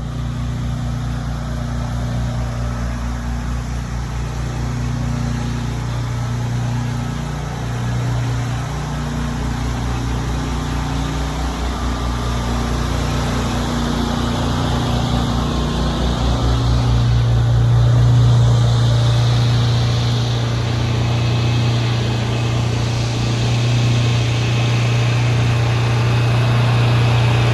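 Pressure washer's gas engine running steadily, with a low hum and fast pulsing; it gets a little louder from about halfway through.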